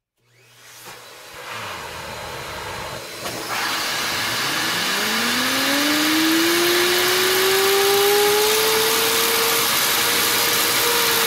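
Strong hiss of air blown through a small 3D-printed axial turbine generator, growing louder about three and a half seconds in. A whine rises steadily in pitch over several seconds as the magnet rotor spins up, then holds steady near the end.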